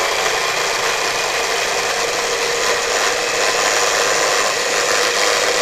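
Mini electric food processor running loudly and steadily at one constant pitch, chopping and blending garlic into peanut butter.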